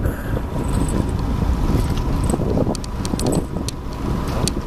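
Wind on the microphone, a steady low rush, with scattered light clicks and knocks.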